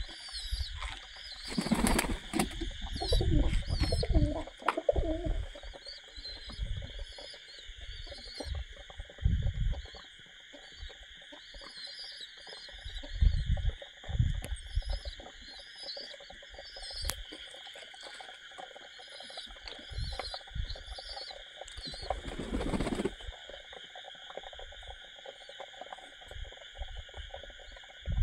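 Flock of domestic pigeons feeding on scattered grain, with bursts of wing flapping about two seconds in and again about twenty-two seconds in, and scattered low thumps between. A steady, high insect chorus runs underneath.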